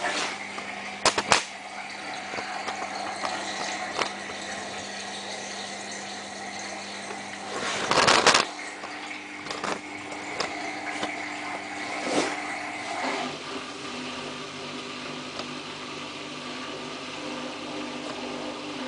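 Samsung WF8804RPA washing machine starting a spin cycle in service mode: a steady machine hum from the motor and turning drum as it begins to spin. A couple of sharp clicks come about a second in, a louder rushing surge about eight seconds in, and the hum changes pitch about thirteen seconds in.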